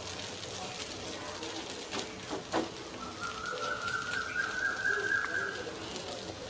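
Ladle spreading dosa batter in circles on a tawa, with a couple of faint scrapes about two seconds in. About three seconds in, a thin whistling tone starts in the background and holds for nearly three seconds, rising slightly.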